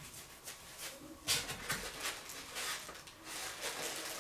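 Rustling and crinkling of packaging and handling noise as the statue's plastic head sculpt is taken out, starting about a second in and going on in irregular bursts.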